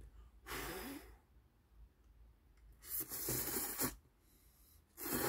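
A man slurping instant ramen noodles from the cup in airy sucking bursts: a short one about half a second in, then longer slurps about three seconds in and again at the very end.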